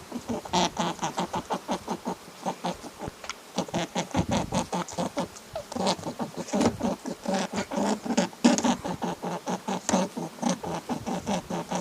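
Animals making rapid, repeated short calls or clicks, several a second, thinning out briefly about four seconds in before picking up again.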